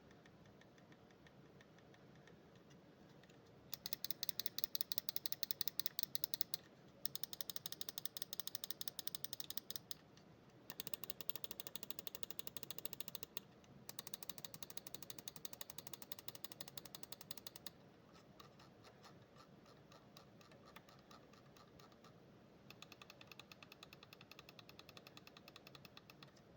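Lamzu Atlantis gaming mouse buttons clicked rapidly in runs of several seconds, with short pauses between runs: sharp, evenly spaced clicks. The last two runs are quieter.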